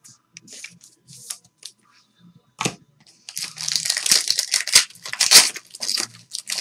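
Trading cards handled with light scuffs and clicks, then from about halfway in a clear plastic card pack wrapper torn open and crinkled, much louder.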